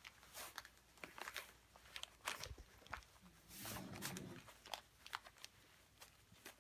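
Christmas wrapping paper crinkling and rustling in scattered sharp crackles as a dog noses and digs into a wrapped gift bag.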